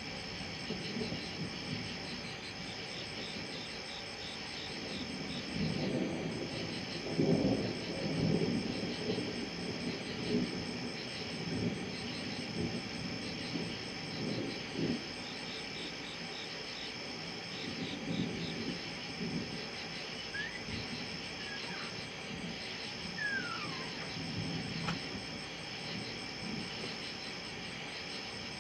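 Thunder rumbling and rolling, loudest about a quarter of the way in with further rumbles later. Under it runs a steady, pulsing chorus of night insects.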